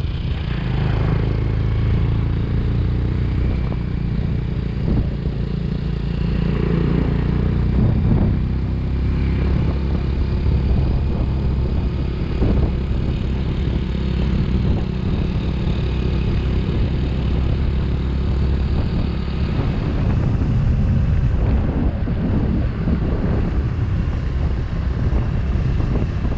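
Motorcycle engine running steadily while riding along a road, heard from on the bike, with a low rumble of wind and road noise.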